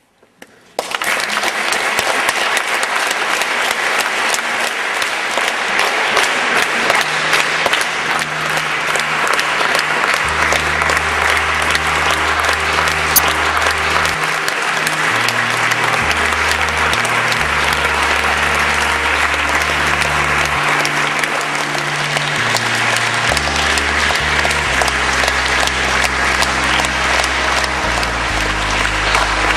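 Audience applauding, breaking out suddenly about a second in after the final piano tones of a song die away. From several seconds in, low bass notes of music change every second or two under the clapping.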